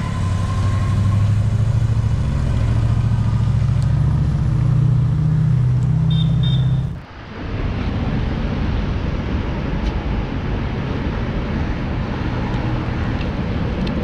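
A car engine running with a steady low drone. About halfway through the sound changes abruptly to a busier mix of engine and traffic noise.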